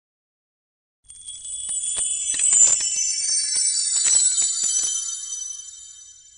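High tinkling bells or chimes: many ringing tones with quick jingling strikes, starting about a second in, swelling and then dying away near the end, as an intro sting under the production-company title.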